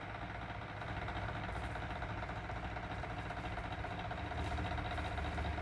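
A steady low background hum with a rumble underneath and faint steady tones, growing slightly louder towards the end.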